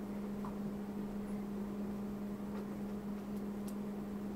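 A steady electrical hum, one constant low tone, over faint room noise.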